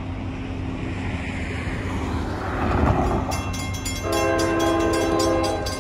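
CSX freight locomotive horn sounding one long, steady chord from about four seconds in, the train still approaching. Just before it, the crossing bell starts ringing in rapid even strokes, over road traffic crossing the tracks.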